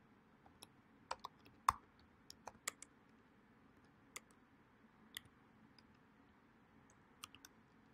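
Faint, irregular keystrokes on a computer keyboard as a short command is typed a key at a time, with pauses between the clicks.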